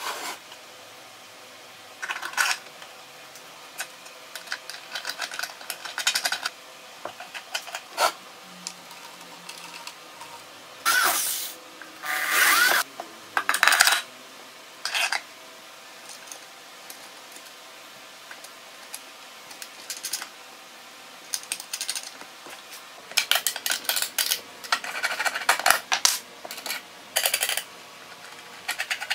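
Steel bolt, washers and nut clinking and scraping as they are fitted by hand through a plywood panel, in short irregular bursts with quiet gaps between.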